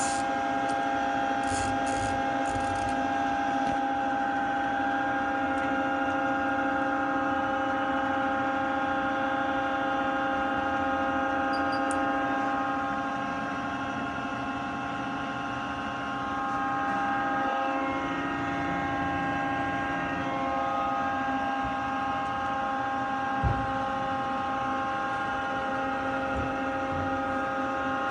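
Takisawa TC-20 CNC turning center powered up and running: a steady machine hum and whine made of several held tones. There are a few light clicks near the start and a single short knock late on.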